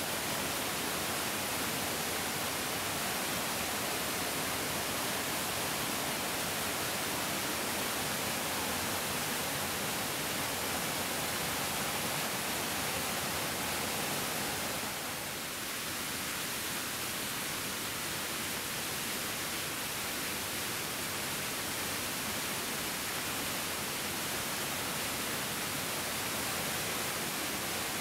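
Mountain stream rushing steadily, a dense even hiss of flowing water, dipping slightly about fifteen seconds in.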